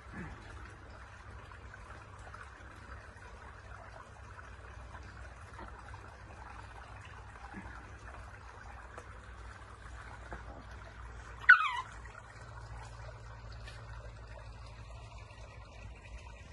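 Quiet outdoor background with a faint steady hum, broken about two thirds of the way through by one short, loud, high-pitched call from an animal that wavers and falls in pitch.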